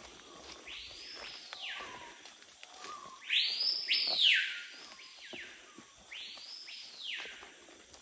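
Three long calls from a forest creature, each rising in pitch, holding, then falling away, about a second apiece. The middle call is the loudest and comes doubled.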